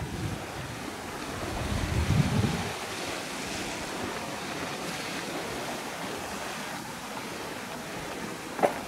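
Wind buffeting the microphone in low rumbling gusts for the first couple of seconds, then a steady wash of wind and sea surf from the water below the cliff. A single sharp knock near the end.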